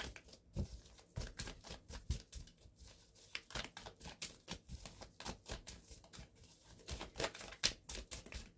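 A deck of cartomancy cards shuffled by hand: a continuous, irregular run of quick soft card-on-card flicks and slaps, several a second, the cards sliding freely against each other.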